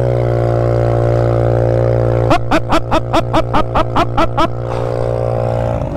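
Sport quad engine running at a steady pitch, then for about two seconds stuttering in a rapid rhythm, about five dips a second, as it goes over a run of whoops, before settling back to steady running.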